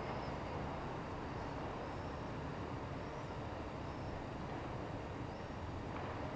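Steady outdoor background noise: an even low rumble, with a few faint high chirps.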